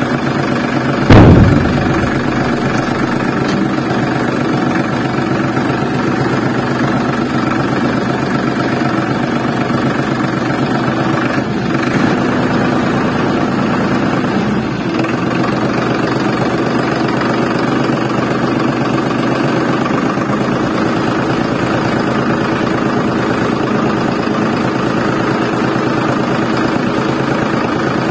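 Mini tractor running steadily with an engine-like drone, with one loud sudden thump about a second in.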